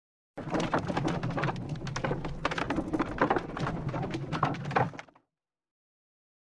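A carriage rolling and clattering, with a steady low rumble under many knocks and clicks. It starts suddenly and cuts off abruptly about five seconds in.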